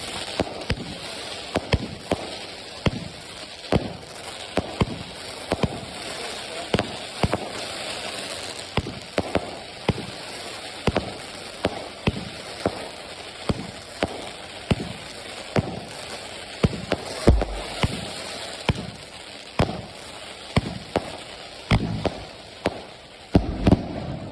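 Trooper 'Mini Bumble' consumer firework burning after ignition: a continuous spraying hiss with sharp pops going off irregularly, about one to two a second, and a couple of heavier thumps in the second half.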